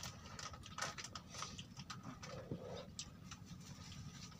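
Faint scattered clicks and handling noise over a low wind rumble on the microphone, with one brief faint pitched sound about halfway through.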